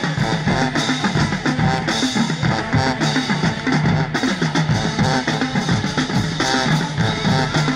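Marching band drumline playing a fast, steady cadence on snare drums and bass drums, with sousaphones playing a low line underneath.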